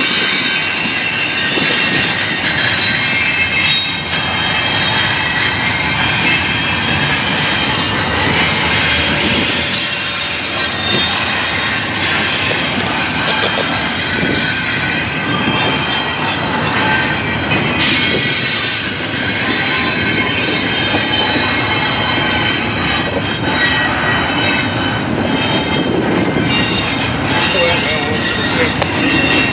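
Double-stack intermodal container train rolling steadily past, its steel wheels rumbling on the rails with a continuous high-pitched squeal of several tones from wheels against rail.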